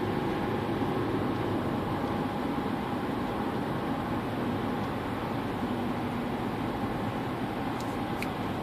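Steady cabin noise inside a moving Volkswagen Jetta Hybrid: road and tyre rumble with the climate-control air blower running, while the hybrid powertrain stays quiet. A couple of faint ticks come near the end.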